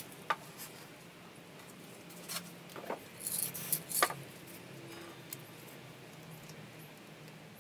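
Scattered short rustles, scrapes and taps of paper and a small scraping tool handled on a spray-painting board, bunched a few seconds in, then only faint ticks.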